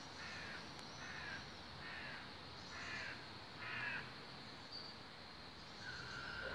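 A crow cawing repeatedly: about five harsh caws, roughly a second apart.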